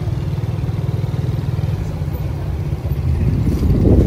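Motorcycle engine running steadily under way, a low pulsing rumble that swells louder briefly near the end.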